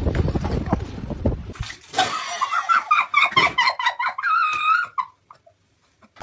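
A rapid run of knocks and thumps with noise. Then, from about two seconds in, high-pitched squealing and laughter from girls in a small room, which cuts off about a second before the end.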